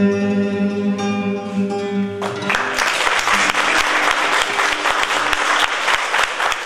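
Closing notes of an acoustic guitar ring out, then about two seconds in, audience applause starts and carries on.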